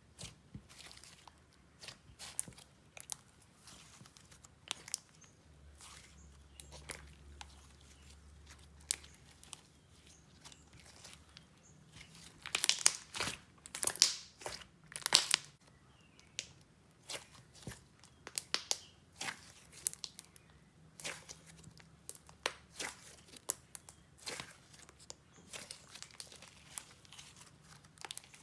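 Jelly slime being squeezed and stretched by hand, giving off irregular wet crackles and pops of air bubbles, with a louder, busier run of pops about halfway through.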